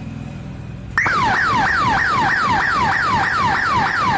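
Small electronic bike siren playing its 'silicon' or VIP tune, the ambulance-horn tune. It starts about a second in as a fast falling yelp, about four quick downward sweeps a second, repeated evenly.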